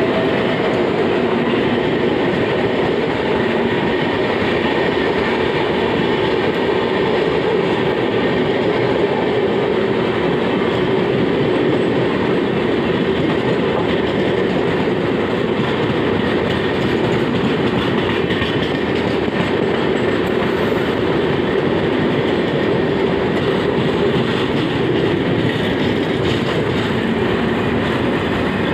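LHB passenger coaches of an electric-hauled train rolling past at close range: a loud, steady noise of steel wheels running on the rails, with some clickety-clack over the rail joints.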